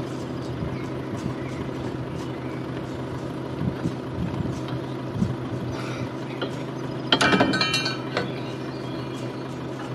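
A loud metallic clinking rattle about seven seconds in, lasting under a second, as the steel trailer coupling aid is handled and taken off at the tow ball, with a few duller knocks before it. A steady engine hum runs underneath.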